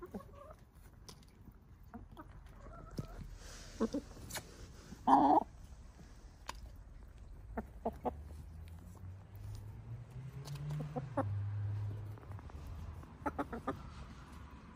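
Backyard hens clucking softly while pecking at food, with sharp taps against a plastic bowl and the ground. One loud, short squawk comes about five seconds in.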